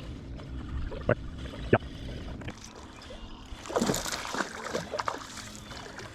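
Water splashing and sloshing at the surface about four seconds in, after two sharp clicks, over a steady low hum.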